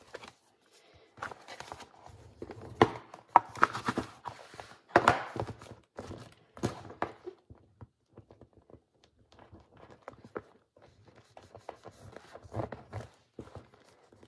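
Bone folder rubbing and pressing along the spine of a hardcover handmade book, with irregular scrapes and knocks as the book is handled on the tabletop.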